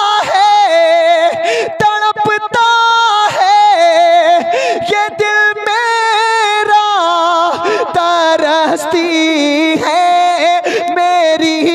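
A man singing an Urdu naat unaccompanied into a microphone, drawing out long held notes with ornamented, wavering glides between them.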